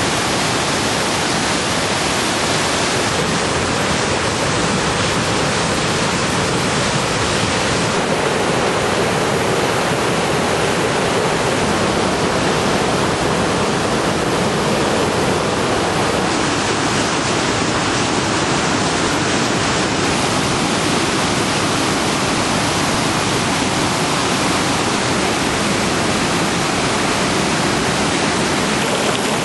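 Waterfall and river rapids rushing steadily: a dense, even roar of falling water.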